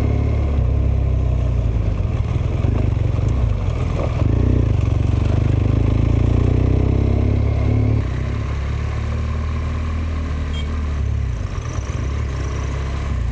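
A BMW R1200GS's boxer-twin engine runs steadily while the motorcycle is ridden along a rough road. The sound gets somewhat quieter about eight seconds in.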